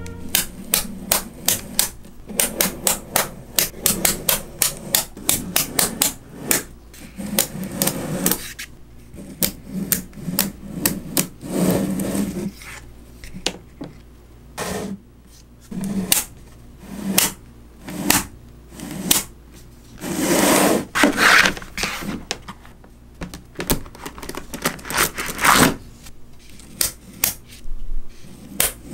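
Small neodymium magnet balls (Neocube) clicking and snapping together as blocks of them are set down and joined on a table: a quick run of sharp clicks at first, then sparser clicks, with a couple of longer rattling scrapes of the balls along the surface.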